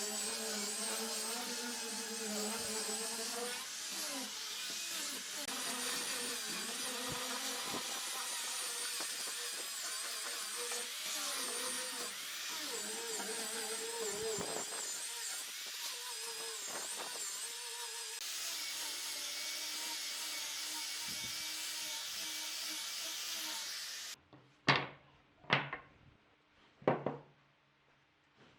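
An electric power tool running steadily on wood, its pitch wavering as the load changes, then switching off abruptly near the end. Three sharp knocks follow.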